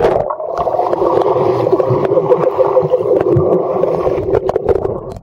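Underwater sound through a submerged camera: a dense, muffled bubbling rush of moving water around a swimmer, with the high end cut off.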